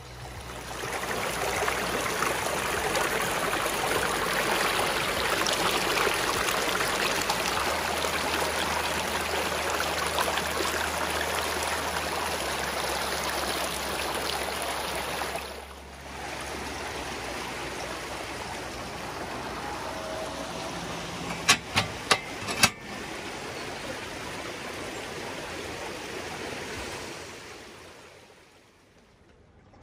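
Rushing water, like a stream or small waterfall. It is steady, breaks off briefly about halfway and comes back quieter, and a few sharp clicks sound about three-quarters of the way through.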